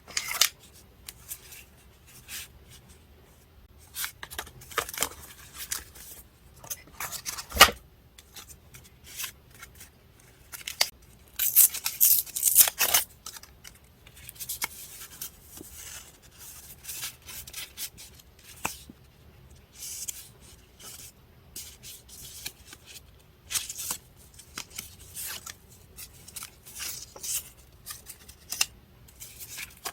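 Paper being cut with scissors and handled: irregular snips, rustles and tearing, with a denser spell of rustling about halfway through.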